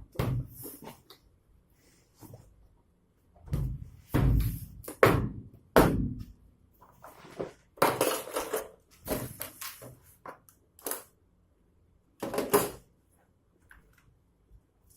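A boxed hand tool kit being unpacked: irregular thunks, knocks and rustling of packaging as the box is opened and the kit lifted out, in short bursts with pauses between.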